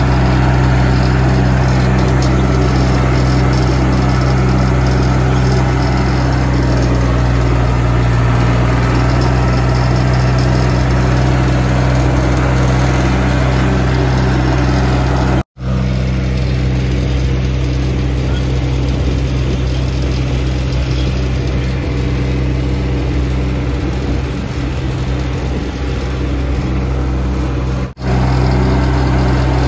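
Farm tractor engine running steadily at a constant low pitch while driving. The sound cuts out briefly twice, about halfway and near the end.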